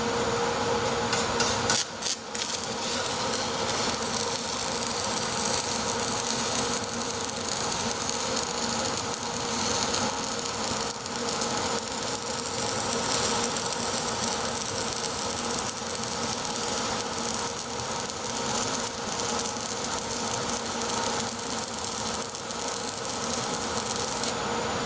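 Stick-welding (shielded metal arc) electrode arc crackling and hissing steadily while a long weld bead is run. It sputters a few times and briefly drops out about two seconds in as the arc is struck, then burns evenly.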